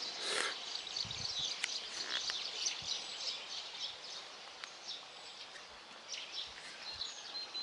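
Small songbirds chirping and calling over a faint steady hiss of outdoor background noise, with a few short whistled notes near the end.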